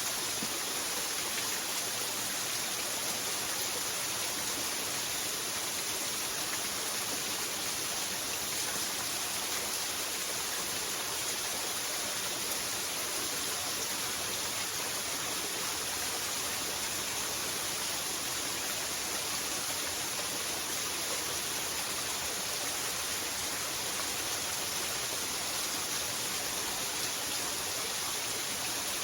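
Waterfall: a steady, even rush of falling water, mostly a high hiss with little low rumble.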